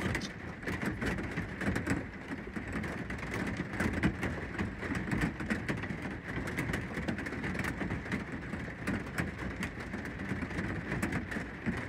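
Steady rain falling on the roof of a pickup truck, heard from inside the cab, with many separate drop hits.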